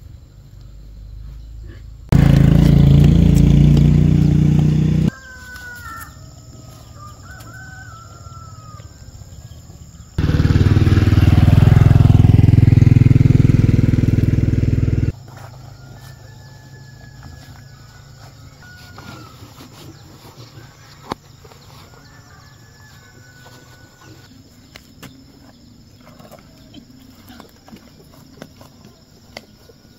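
A motor running loudly in two stretches, about three seconds and then about five seconds, each starting and stopping abruptly. Between and after them, birds calling, with scattered faint clicks.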